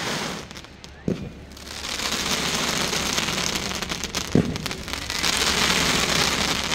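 Fireworks going off: a sharp bang about a second in, then a dense, steady crackling that fills the rest, with a second bang partway through.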